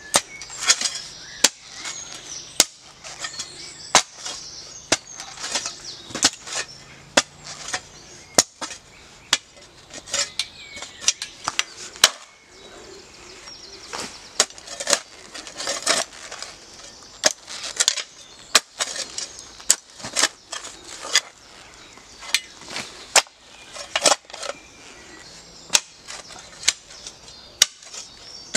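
A metal spade chopping and digging into hard, stony soil: irregular sharp strikes, about one or two a second, as the blade bites into the ground and hits stones.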